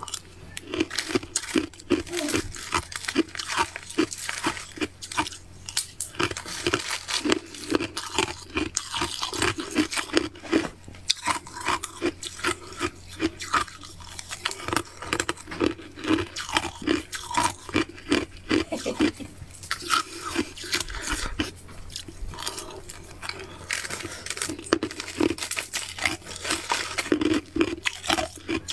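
A mouth chewing finely crushed ice, with a dense, unbroken run of sharp crunches heard close up.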